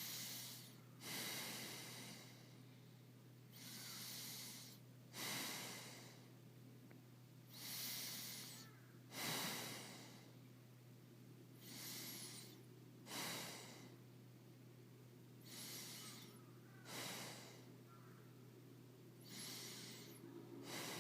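A person breathing slowly in and out, each breath an airy hiss; about five breath cycles, one every four seconds or so, each a softer swell followed by a sharper-starting one.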